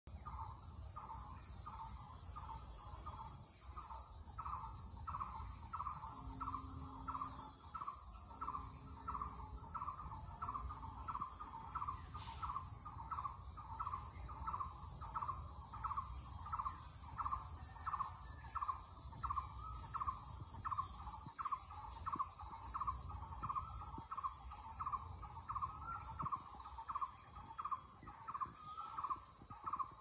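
A steady high-pitched insect chorus with a bird repeating a short call about one and a half times a second throughout.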